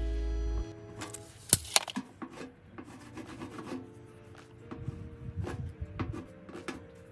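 Clicks and scrapes of food being handled and worked with a marinade, the two sharpest clicks coming about a second and a half in, over background music.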